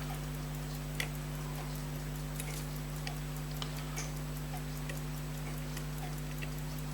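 Faint, sparse metallic clicks of a small screwdriver nipping down a screw in an Elgin pocket watch movement, the clearest about a second in, over a steady low electrical hum.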